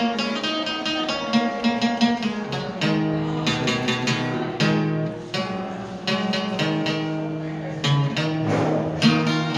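Archtop guitar played solo: an instrumental passage of picked chords and notes.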